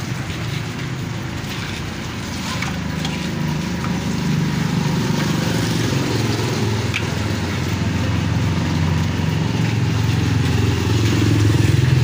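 A steady low engine-like rumble, as of a motor vehicle running nearby, growing louder about four seconds in and again near the end, with a few faint clicks.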